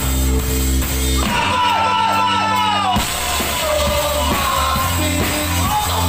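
Live band playing a rock song, with sung vocals over bass, keyboards and drum kit. About a second in the bass and drums drop out and long held vocal notes carry alone, then the full band comes back in at about three seconds.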